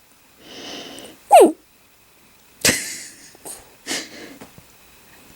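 Coton de Tulear dog vocalizing: a short breathy grumble, then a loud brief whine that drops in pitch, followed by a sharp huff and a few smaller ones.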